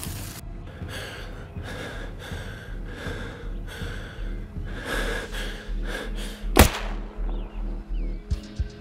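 Film soundtrack: a low music drone under a regular rustle of steps or breaths, then a single sharp rifle shot about six and a half seconds in, the loudest sound. Near the end a steady, heartbeat-like thumping starts in the score.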